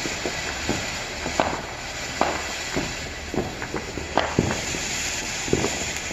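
Ground fountain firework spraying sparks: a steady hiss with scattered crackles and pops.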